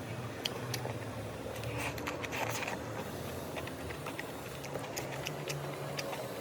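Someone eating chicken biryani: scattered small clicks and chewing sounds over a steady low hum.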